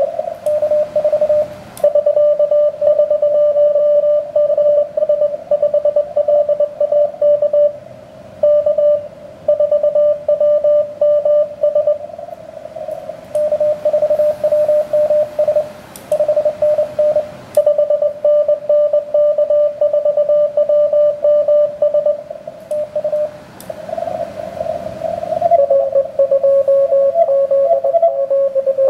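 Morse code (CW) from an HF amateur radio transceiver: a single-pitched tone keyed on and off in dots and dashes, with band hiss rising in the gaps between signals. Near the end the tone drops slightly in pitch as the receive frequency is retuned.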